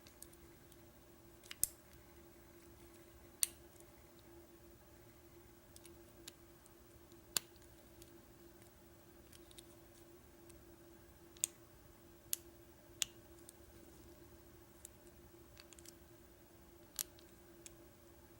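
Metal pick and tension wrench working the pin stack of an American Lock 1100 padlock, giving scattered sharp clicks at irregular intervals over a faint steady hum.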